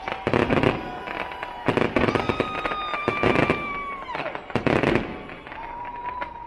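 Aerial fireworks going off in about four bursts of bangs and crackling. A high whistling tone holds over them and drops away just after four seconds.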